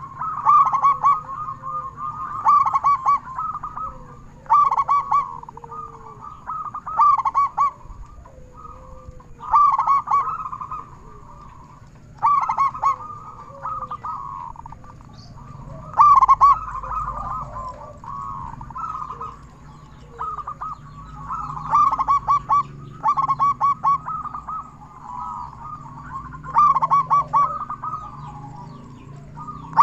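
Zebra dove (perkutut) cooing over and over, each song a quick stuttering run of notes, repeated roughly every two to three seconds.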